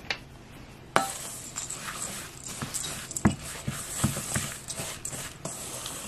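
Wooden spoon stirring oats, sliced almonds and syrup in a stainless steel mixing bowl: a steady scratchy rustle of the oats with scattered light knocks of the spoon against the bowl. Two sharp clicks come before it, at the start and about a second in, when the stirring begins.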